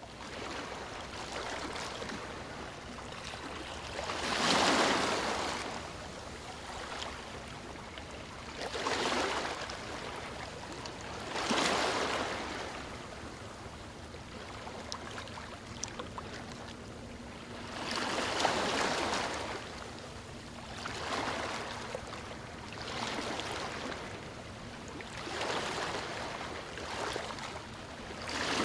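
Ocean waves breaking on a shore: a steady wash of surf that swells into a louder wave every few seconds.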